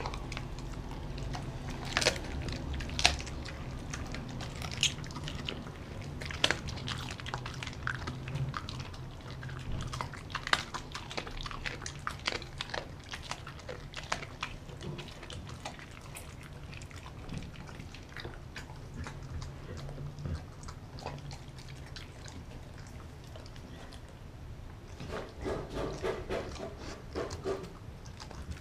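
A large dog chewing and biting raw meat and chicken, with wet chewing and sharp crunches, most of them in the first half. Near the end comes a denser run of mouthing sounds as it returns to the glass bowl.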